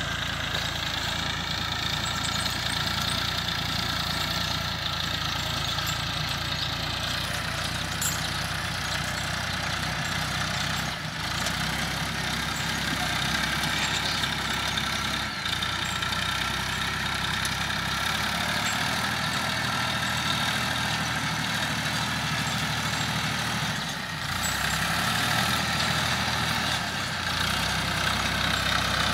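Massey Ferguson 1035 DI tractor's three-cylinder diesel engine running steadily as it pulls a cultivator through dry tilled soil. It grows louder over the last few seconds as the tractor comes closer.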